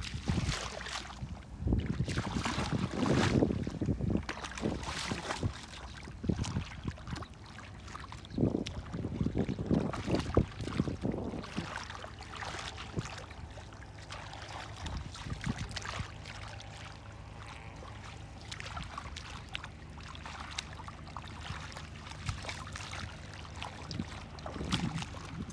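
Hands splashing and sloshing in shallow muddy water in irregular bursts, with wind rumbling on the microphone.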